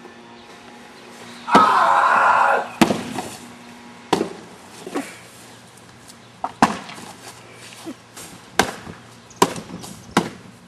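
Flat cardboard sheets slapping and thumping, about a dozen sharp hits spaced unevenly, after a loud rushing burst of noise lasting about a second near the start.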